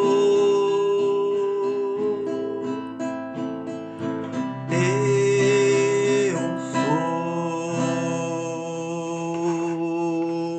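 Background music on acoustic guitar, plucked notes under long held melody tones, dying away near the end.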